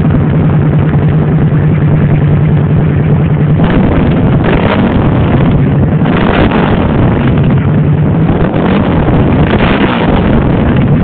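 Suzuki V-Strom 1000's 90-degree V-twin idling steadily through its twin silencers, then revved in several short throttle blips from about three and a half seconds in, dropping back toward idle between them.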